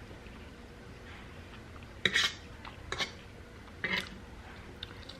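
A utensil clinking against a dish three times, about a second apart, with a fainter tap near the end.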